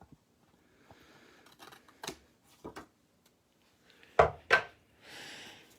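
Excess cork paper being cut off for a handmade card: faint cutting and rustling with a few light clicks, then two sharp knocks a moment apart, the loudest sounds, and a soft rustle near the end.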